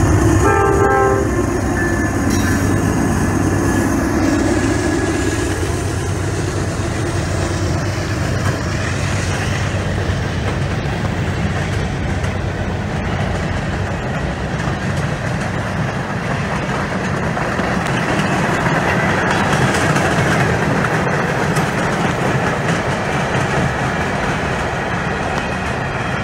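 Freight train passing close by: the GE diesel locomotives run past at the start, with a brief horn note about a second in. The freight cars then roll by with steady wheel-on-rail noise and clickety-clack.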